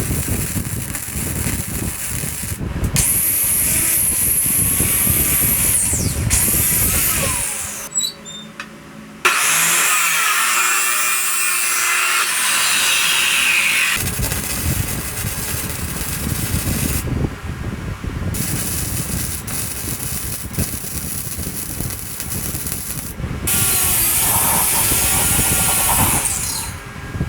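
Angle grinder working metal in several bursts, each spinning up to a high whine and winding down with a falling pitch when released.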